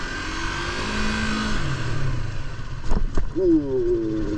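Motorcycle engine running under way, with wind rushing over the microphone. Two short clicks come about three seconds in, then the engine's pitch drops as the bike slows.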